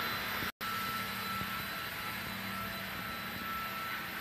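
Paint spray gun running: a steady hum with hiss. It cuts out completely for a moment about half a second in.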